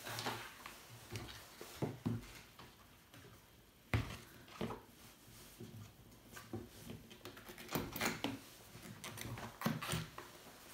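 Handling noises on a hollow plastic cargo tube made from 160 mm ventilation duct: rustling as mittens are stuffed inside, then scattered clicks and knocks as its plastic end cap is fitted. The sharpest knock comes about four seconds in.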